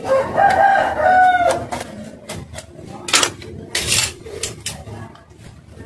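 A rooster crowing for about a second and a half at the start, in two parts. Two short, harsh noises follow about three and four seconds in.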